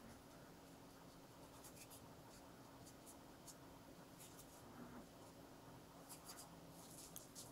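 Faint scratchy dabs of a wide flat brush's bristles on watercolour paper, coming in short irregular clusters over a low steady hum.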